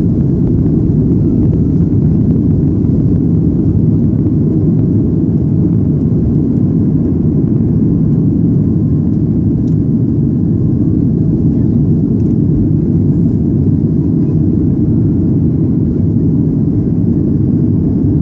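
Boeing 737 jet engines at takeoff thrust heard inside the cabin during the takeoff roll and climb-out: a loud, steady low rumble with no break.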